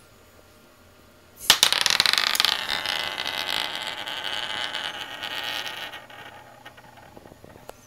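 Metal thumbscrew spun on a hard flat surface: it sets off with a sudden clatter about a second and a half in, then spins with a fast rattling whir that fades away over the next few seconds.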